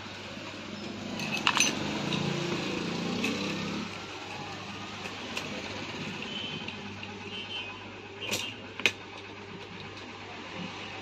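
Sharp metal clicks and light rattling from a chainsaw chain and guide bar being handled and fitted onto the saw's sprocket, a few clicks about a second and a half in and two more near the end, over a steady low hum.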